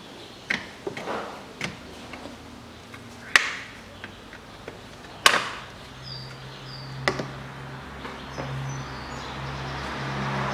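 Sharp plastic clicks and knocks of wiring-harness connectors being unclipped and handled in a car's engine bay, the two loudest about three and five seconds in. A low steady hum comes in about six seconds in.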